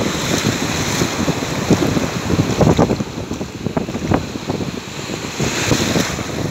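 Sea surf breaking and foaming in the shallows, a wave washing in with a louder hiss near the end, with wind buffeting the microphone in irregular low gusts.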